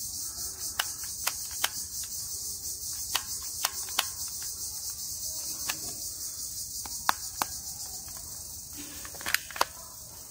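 Insects chirring steadily in a high, evenly pulsing drone, with about a dozen sharp, scattered clicks as a plastic toy pistol is handled.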